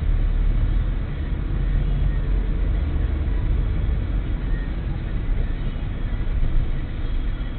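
Steady low rumble of a car's engine and tyres heard from inside the cabin while driving slowly in city traffic.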